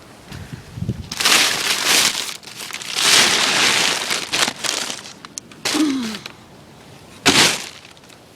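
Strong wind gusts buffeting the microphone, coming in several loud rushing surges about a second or so long with calmer gaps between.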